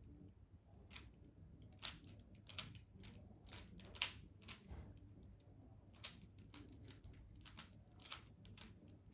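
Plastic Rubik's cube being turned layer by layer, its faces clicking in quick irregular runs with a short pause about halfway, while the second layer is being solved.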